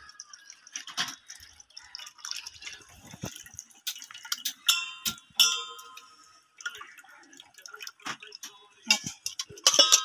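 Hands squeezing and mashing soaked tamarind and jaggery in a steel bowl as tamarind water is poured in from a steel tumbler: wet squelching, dripping and splashing, with scattered light clicks and a couple of short ringing clinks of steel about five seconds in.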